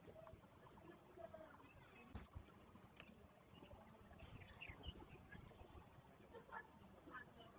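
Near silence: faint room tone with a steady high-pitched whine, broken by a single short knock about two seconds in and a lighter click a second later.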